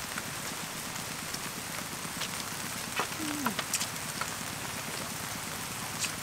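Beef frying in butter in a large pan, a steady sizzle, with a few sharp clicks of chopsticks and tongs against the pan.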